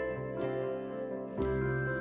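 Background music: a gentle melody of plucked-string and keyboard-like notes over sustained bass tones, with new notes struck about once a second.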